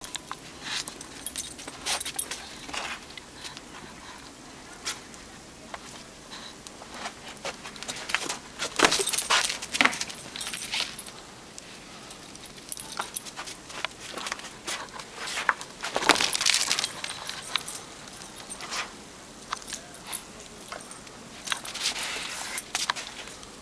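Snow crunching under the paws of a German Shorthaired Pointer running about with a rubber ball in its mouth, and under the footsteps of the person following it. Irregular crunches and clicks come throughout, loudest in spells about a third of the way in and a little past the middle.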